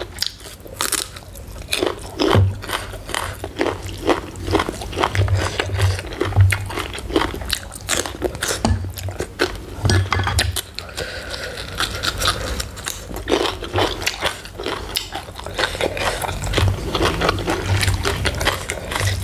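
Close-up crunchy chewing and biting of raw vegetables and green papaya salad, a run of irregular crisp crunches and wet mouth sounds.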